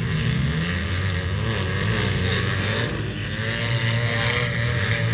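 Demolition derby cars' engines running together, a steady engine drone whose pitch rises and falls as drivers rev.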